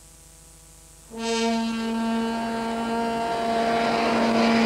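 Opening of a TV series' title music: after a second of faint hiss, a single long, steady brass-like note comes in sharply, with the rising rush of a jet aircraft taking off growing beneath it.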